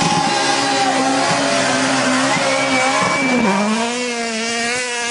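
Rally car engine running hard as the car ploughs through deep water, with the hiss of spray over it for the first few seconds. About three and a half seconds in, the engine note drops sharply and then holds steady at a lower pitch.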